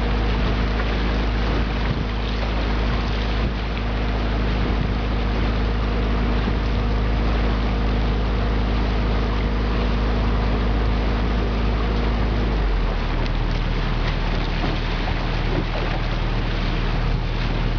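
Motorboat engine running steadily, with water rushing past and wind on the microphone. About thirteen seconds in, the engine note shifts lower.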